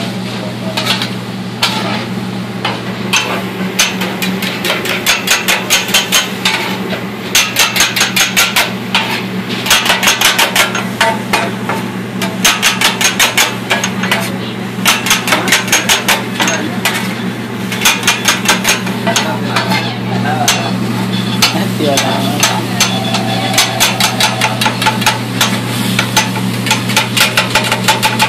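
Two metal spatulas clanking and scraping on a flat-top griddle as meat is chopped, in fast runs of strikes that stop and start, over sizzling and a steady low hum.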